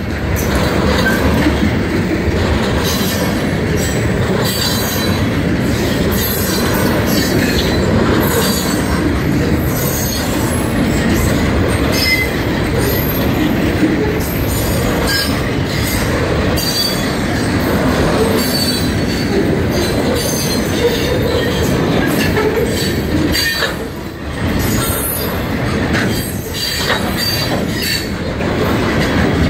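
Georgia Central Railroad freight train's covered hoppers and boxcars rolling past: a steady rumble of steel wheels on rail, broken by clacks over the rail joints and brief high metallic wheel squeals.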